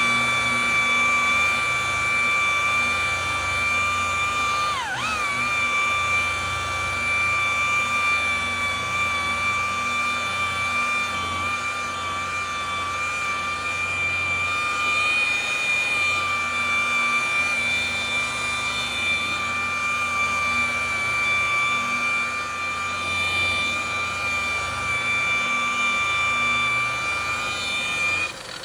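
Electric rotary buffer spinning a wool cutting pad on car paint, running with a steady high whine. Its pitch sags and recovers once about five seconds in as the pad is loaded, and it switches off just before the end.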